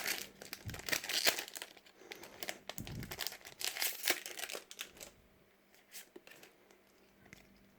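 Plastic-foil Pokémon booster pack wrapper crinkling and being torn open, an irregular crackle that dies away about five seconds in.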